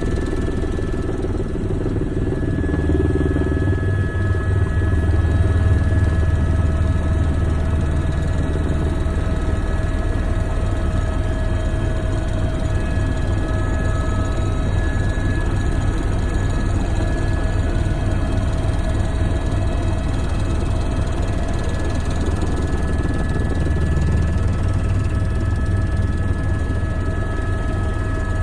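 Helicopter in flight heard from inside the cabin: a steady low, fast-pulsing rotor beat with a steady engine whine above it, swelling a little about five seconds in.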